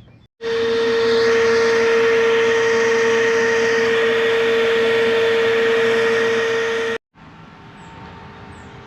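Loud, steady machine noise with a constant motor whine. It starts abruptly and cuts off abruptly about seven seconds in.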